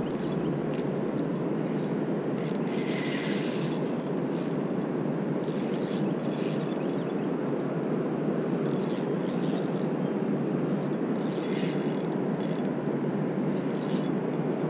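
Spinning reel cranked steadily while fighting a big fish, giving a continuous gear rattle. Short high-pitched buzzing bursts come every second or two.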